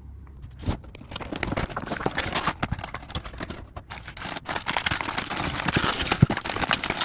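Crinkling and tearing of packaging being handled: a dense run of small crackles and clicks that starts about a second in and grows louder in the second half.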